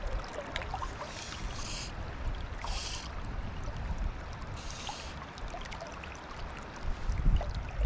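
Fast river water running steadily, with scattered small splashes and a few short hissing bursts. A louder low rumble comes in near the end.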